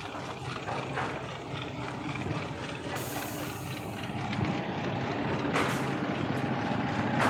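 An engine running steadily with a low pulsing beat, growing louder toward the end, with a short hiss about three seconds in.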